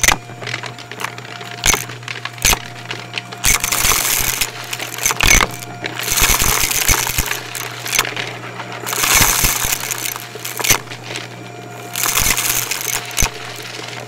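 Shark Navigator vacuum running with a steady hum while it sucks up crunchy debris, giving many sharp clicks and crackles. Surges of airy hiss come every couple of seconds as the head is pushed over the floor.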